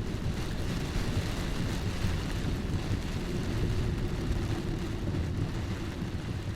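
Steady rain: an even, dense hiss over a deep low rumble.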